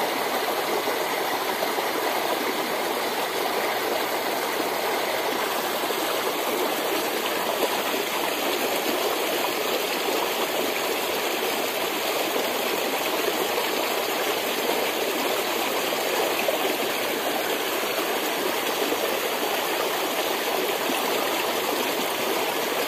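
Small rocky stream rushing steadily as it pours over a little cascade between boulders.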